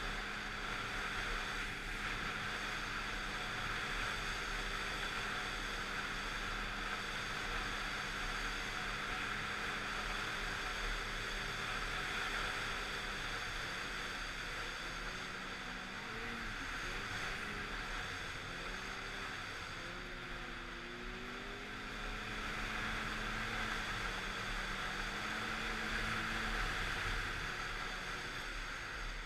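Snowmobile engine running under way on a snow trail, with a steady rushing noise over it. The engine pitch holds steady at first, then rises and falls repeatedly from about halfway through as the throttle changes.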